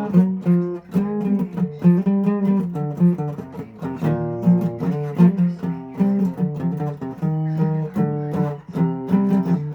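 Acoustic guitar playing on its own, chords plucked and strummed note by note in a slow, even pattern, with a chord ringing out near the end.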